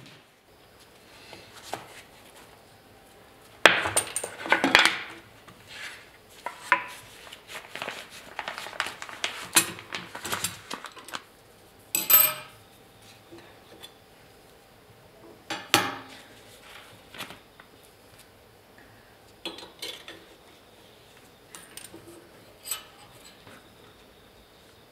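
Irregular metallic clinks and taps of a steel hand tool working on a jointer's cutterhead and knives, as the knives are adjusted. The clinks are busiest from about four to eleven seconds in, with separate bursts about twelve and sixteen seconds in.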